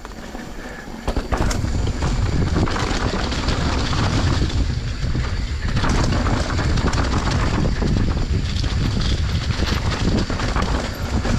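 Enduro dirt bike ridden along a rough forest trail: a loud, uneven low rumble with many knocks and rattles from the bumps, getting louder about a second in.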